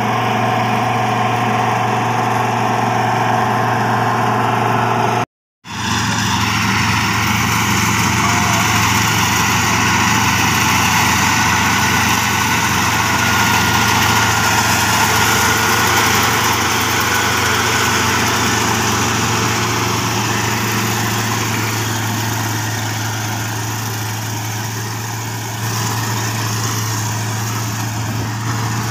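Kubota SR55 combine harvester running steadily while cutting rice, its engine hum under the even noise of the machinery. The sound breaks off for a moment about five seconds in, then carries on.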